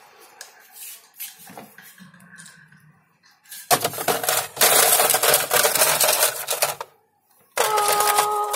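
Ice being taken from a freezer: a dense clattering and crackling of ice in a plastic ice tray lasting about three seconds, then near the end a short steady ringing tone.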